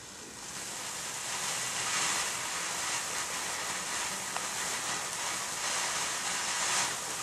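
Garden firework fountain spraying sparks with a steady hiss that builds over the first two seconds after it catches, then holds.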